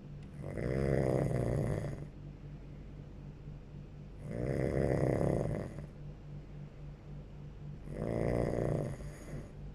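A person snoring in sleep: three long, rattling snores about four seconds apart, each lasting about a second and a half, over a steady low hum.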